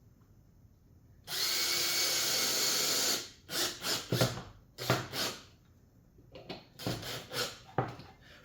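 Power drill/driver running steadily for about two seconds, driving a fastener into the plywood cleat, then a series of short knocks and clatter as the pieces and tool are handled.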